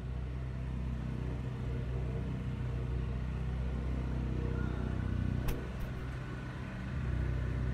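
A steady low mechanical hum, engine-like, with a single click about five and a half seconds in.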